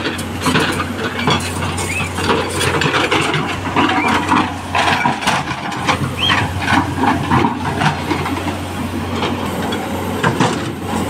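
Tata Hitachi excavator's diesel engine running with a steady low hum, under irregular crunching and knocking of footsteps and stones on loose rock and gravel.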